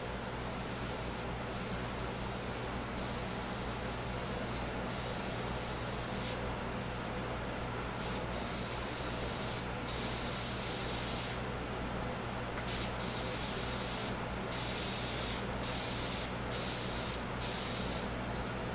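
Airbrush spraying paint in about a dozen short hissing bursts, each from a fraction of a second to about a second and a half long, as the trigger is pressed and let go for close-up detail work. A steady low hum runs underneath.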